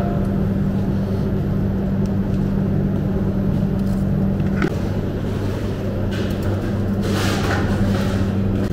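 A steady low mechanical hum, typical of kitchen machinery, with a single click about four and a half seconds in and a couple of short rustling hisses near the end.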